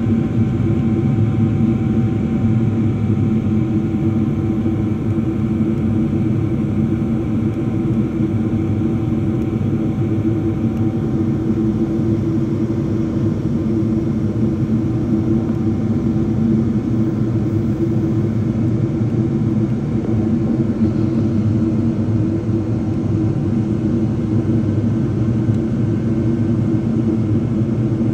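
Airliner cabin noise from a window seat during the climb after takeoff: the jet engines and rushing air make a loud, even, low roar. A faint high steady whine sits on top and fades away in the first half.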